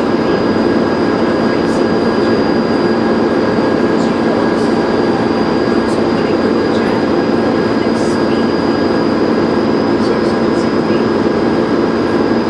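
Dennis Trident 2 bus engine running at a steady pace, with a steady high-pitched turbo whistle over the engine note and occasional light rattles.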